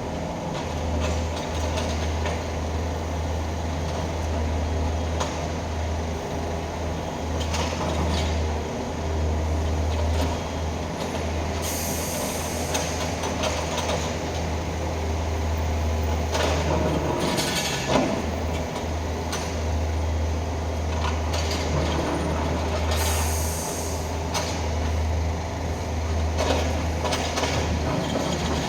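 Mini excavator's engine running steadily as it works sand on a concrete road, with occasional knocks. There are two brief hissing bursts, about twelve seconds in and again about eleven seconds later.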